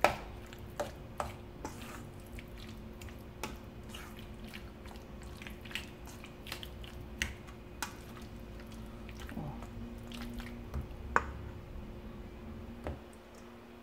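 A spoon stirring and mashing mayonnaise-dressed potato salad in a stainless steel bowl: soft wet squishing with irregular light clicks of the spoon against the metal, over a steady low hum.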